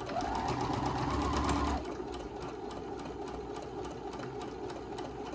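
Sewing machine running a basting stitch along a seam, the needle ticking rapidly and evenly. It runs louder for the first two seconds or so, then carries on at a steady, slightly quieter pace.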